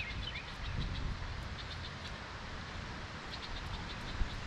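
Outdoor ambience: wind rumbling on the microphone, with a few short bird chirps at the start and scattered faint high chirps later.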